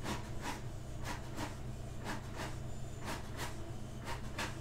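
Brother MFC-J870DW inkjet printer printing a page: short regular clicks, about two a second, over a low steady hum.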